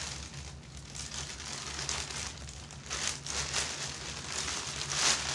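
Close rustling and crinkling handling noise with scattered soft clicks, loudest about five seconds in, over a low steady hum.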